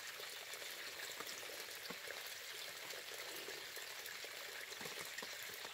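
Wood cooking fire with a lidded pot over it: a faint steady hiss with small scattered crackles and ticks.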